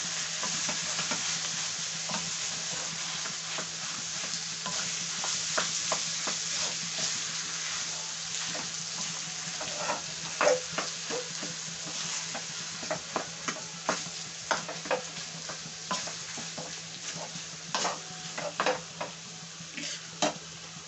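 Wooden spatula stirring and mashing boiled potatoes in hot oil in a kadhai: a steady frying sizzle with frequent knocks and scrapes of the spatula against the pan, coming more often in the second half.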